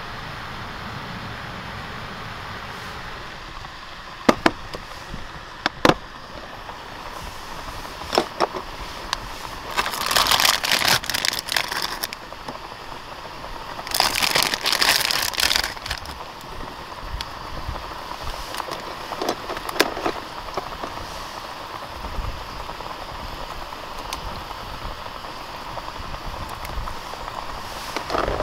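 Plastic packaging crinkled in two bursts of a couple of seconds each, with a few sharp clicks between them, over a steady hiss.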